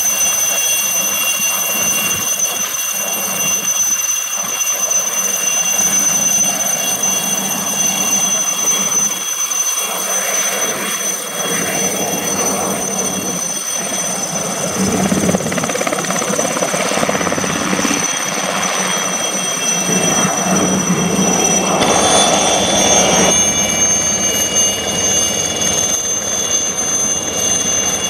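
Aérospatiale SA 315B Lama helicopter's Turbomeca Artouste IIIB1 turboshaft running at flight power with a steady high-pitched whine, over the rush of the rotors as the helicopter hovers and flies.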